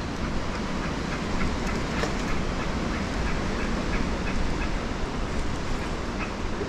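Steady wind and water noise on the microphone, with faint, quick ticking of a few clicks a second through the middle.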